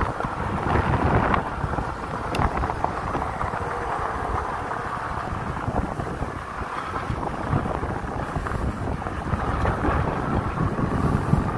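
Wind buffeting the microphone as a fat-tire electric bike rides down a dirt trail, with a steady rumble of the tyres rolling over the ground and a single light click about two and a half seconds in.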